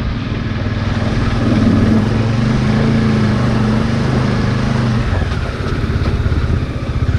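Motorcycle engine running at low road speed, heard close up from the rider's helmet camera; the engine note eases off about five seconds in and turns fluttery.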